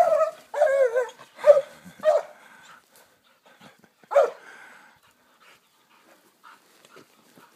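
A series of short, pitched animal cries, each bending up and down in pitch: about five in the first four and a half seconds, then only faint scuffling.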